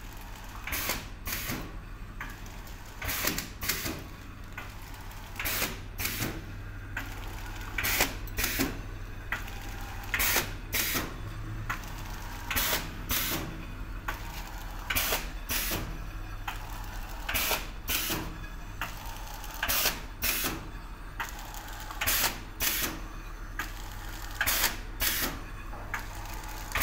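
Automatic vertical pouch packing machine running, clacking sharply in a repeating cycle: a pair of clacks about every two and a half seconds as each pouch is formed, sealed and cut, over a steady low hum.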